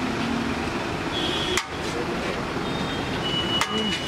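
Busy city street ambience: a steady wash of traffic noise from passing vehicles, with a few brief high tones and two sharp clicks about two seconds apart.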